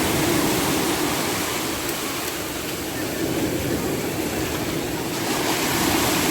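Rough sea surf breaking and washing up the beach: a continuous rush of water that swells and eases slightly.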